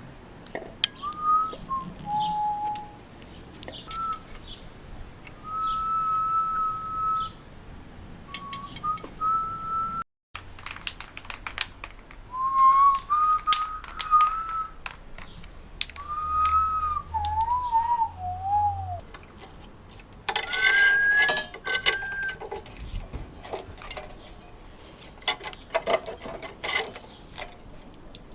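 A person whistling a tune, with held notes and short slides, over scattered clicks and knocks from work in the shop.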